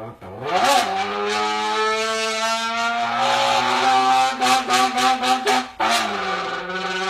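A person's voice imitating a car engine downshifting at speed, from third gear into second: a quick rising rev, a steady held engine note, then a quick run of sharp pops in the middle before the note settles again.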